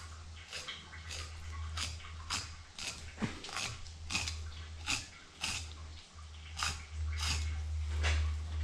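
Fillet knife sawing through northern pike flesh along the bones in short scraping strokes, about two a second with a brief pause about six seconds in, over a steady low hum.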